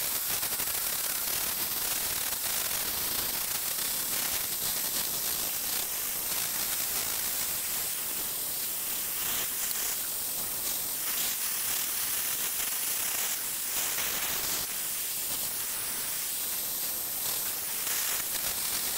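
Hand-held gas torch burning steadily with an even hiss, its blue flame heating a silencer's metal end cap to heat-colour it.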